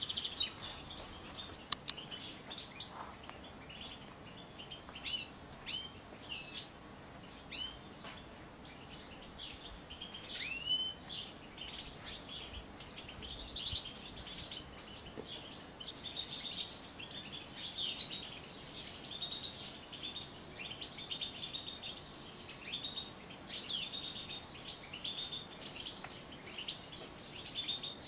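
European goldfinches twittering and singing: a continuous run of quick, high chirps and short trills, with a louder rising call about ten seconds in.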